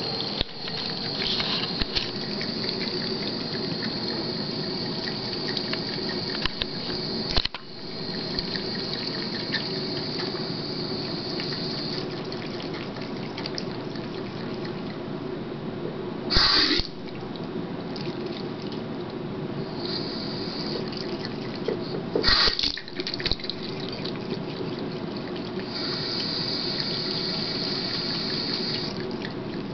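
Bathroom sink faucet running a thin, steady stream of water into the basin. A few short, louder bursts stand out, one about halfway through and another a few seconds later.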